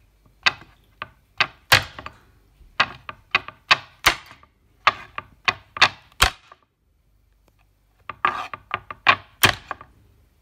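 Chinese cleaver chopping small chilies on a wooden cutting board: sharp knocks of the blade against the wood, two or three a second, pausing about two-thirds of the way through, then a quicker run of chops.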